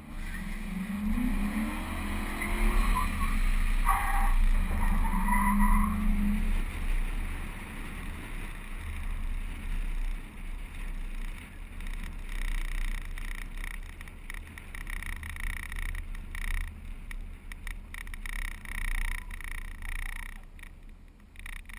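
Car engine floored for a skid-pad spin: the revs rise over the first few seconds, hold, then drop about six seconds in. Wet tyres skid and hiss on the pavement, with a steady high squeal from about twelve to twenty seconds. Heavy wind rumble on the hood-mounted microphone runs throughout.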